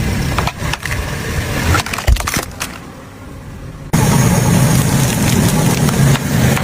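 Car engine rumbling as toy buses are crushed under it, with repeated sharp plastic cracks and crunches. The rumble drops away about two and a half seconds in, then comes back suddenly and loud about four seconds in.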